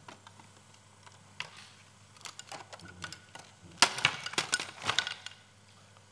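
Hands handling an open-reel video tape recorder: scattered clicks, then a busy cluster of sharp knocks and rattles from a little under four seconds in to about five seconds in.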